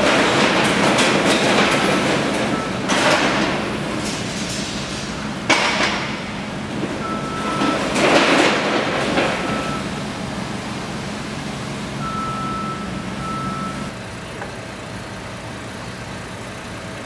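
Road vehicle noise: a steady rumble with several louder swells of vehicles going by, settling to a quieter steady hum about three-quarters of the way through.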